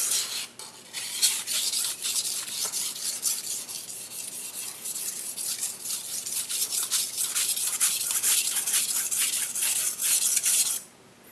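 Gyuto kitchen knife edge sharpened on a whetstone: a quick, steady run of back-and-forth scraping strokes that stops just before the end. The blade is being worked on one side to raise a burr along the edge.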